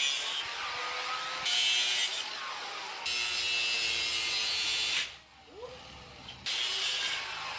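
A power tool cutting steel bed-frame angle iron in several bursts of a second or two each, with short pauses between them.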